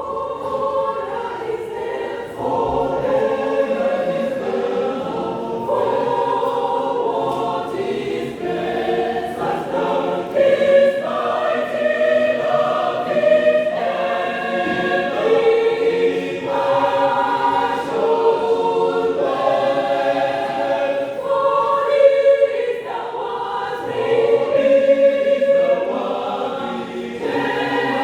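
Mixed choir singing a hymn in several voice parts, notes held for about a second each.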